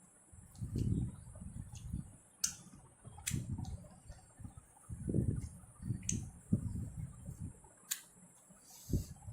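Close-miked chewing of soft rice and mashed food in several bouts, with sharp wet mouth clicks and smacks between them, over a steady faint high hiss.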